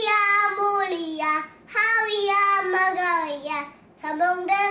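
A young boy singing unaccompanied, holding long sliding notes in phrases, with two short breaks for breath, about one and a half seconds in and near the end.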